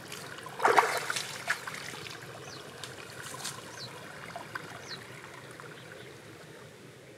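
Water splashing and trickling as a woven bamboo fish trap is lifted from a shallow stream, with a loud splash about a second in, then a dribbling wash that slowly fades.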